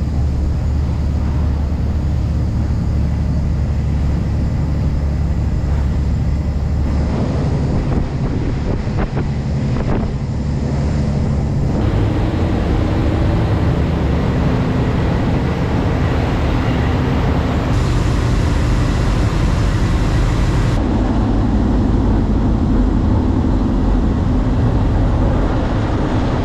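Boat engine droning steadily, with wind and rushing noise on the microphone. The drone's tone shifts abruptly several times.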